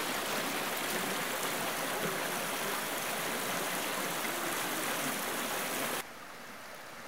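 Forest creek running over rocks, a steady rush of water. About six seconds in it cuts abruptly to a quieter, duller rush.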